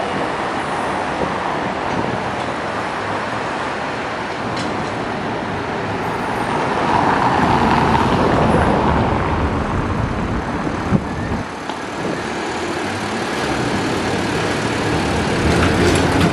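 Road traffic on a cobblestone street, a steady rumble of tyres on the stones. A car passes close about halfway through, the loudest part. A trolleybus rolls by close near the end.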